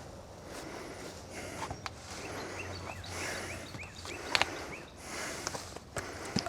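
Footsteps and scattered light knocks of wood while cut firewood logs are handled, the sharpest knock a little over four seconds in.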